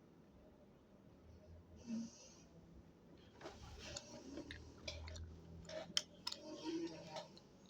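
Faint breathing with a wheezy, snoring-like rasp, a person asleep snoring, with a short hissy breath about two seconds in and a few small clicks in the second half.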